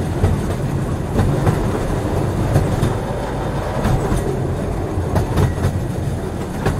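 A train running on the rails: a steady low rumble with irregular clicks and clacks of the wheels over the track.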